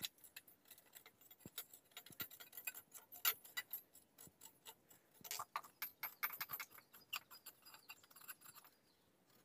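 Galvanized iron pipe being turned by hand into a threaded 3-way connector: faint, irregular metallic clicks and ticks from the threads and fitting, in two flurries, one about one and a half seconds in and another about five seconds in.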